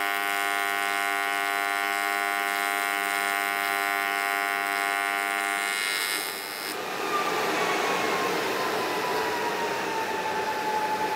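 AC TIG welding arc on aluminum, a steady electric buzz, stops about six seconds in as the foot pedal is let off. After it comes a hiss of post-flow shielding gas from the torch, with a faint whine slowly falling in pitch.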